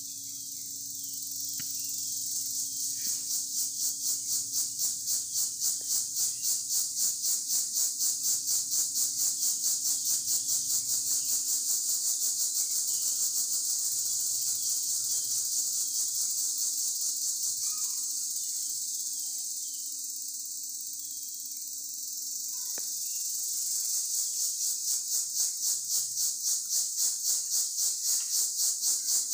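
Insects chirring in a high-pitched, rapidly pulsing drone that swells in after a few seconds, dips for a couple of seconds past the middle, then swells again.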